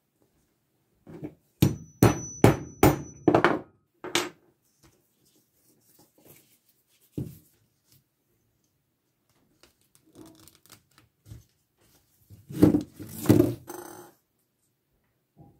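Mallet striking a leather punch through a leather strap on a wooden bench: about six sharp knocks in quick succession, then a single knock, and another quick cluster of knocks near the end.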